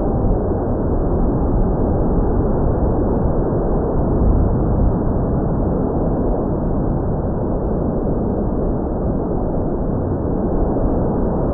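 Steady rushing wind noise on the microphone of an RC plane in flight, with no clear motor whine.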